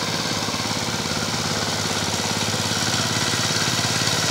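Two-wheel hand tractor's engine running steadily with a fast, even firing beat as it works through a flooded paddy field, growing slightly louder toward the end.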